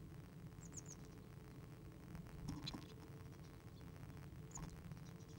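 Faint high-pitched tit calls, three quick thin notes about a second in and one more near the end, with a short rustle of dry nest material being worked inside a wooden nest box around the middle.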